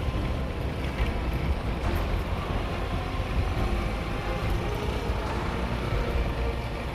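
Steady rumble of a moving road vehicle, with engine and road noise running evenly throughout.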